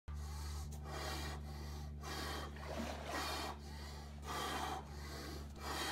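Rapid, deep, rhythmic breathing, Wim Hof method power breaths, each breath in and out lasting about two-thirds of a second, over a steady low hum.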